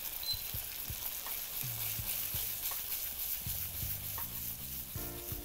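A crêpe sizzling steadily in a frying pan of butter caramel and rum as the flambéed rum cooks off.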